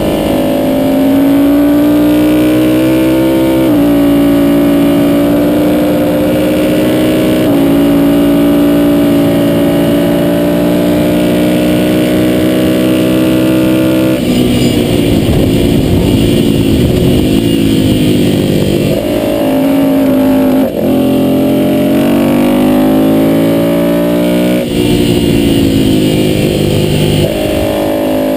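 Ducati V-twin motorcycle engine at track pace, heard from onboard. It holds high revs with a couple of steps in pitch at gear changes, then about halfway the revs drop and waver and climb again several times through the corners.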